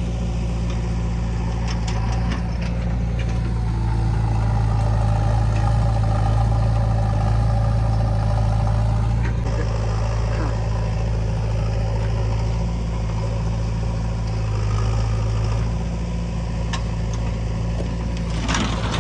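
Heavy diesel engine of a backhoe loader or tractor running steadily at a low, even speed, with a short clatter near the end.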